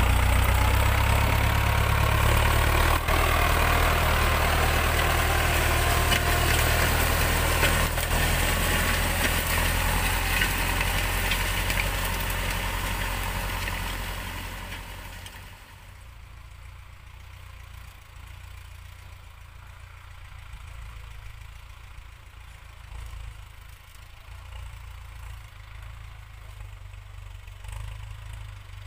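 Ford 6610S tractor's diesel engine running steadily as it pulls a seven-disc harrow through sandy soil. It is loud and close for the first half, then fades over a couple of seconds about fifteen seconds in and runs on much quieter and farther off.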